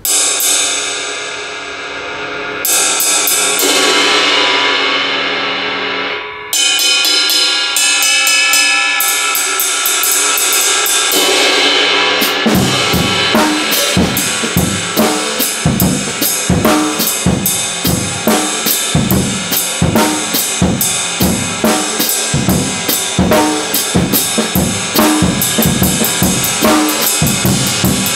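22-inch Zildjian K Heavy Ride cymbal (3564 g) struck and left to ring out three times, then played with a stick in a steady ride pattern. From about 12 seconds in, bass drum and snare join in a steady drum-kit groove under the ride.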